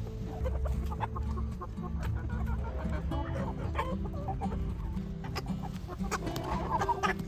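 Chickens clucking over background music with held low notes.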